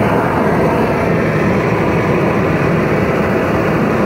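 Gas torch flame running steadily: a loud, even rushing noise as the flame plays over a bronze bust to heat it for a hot patina.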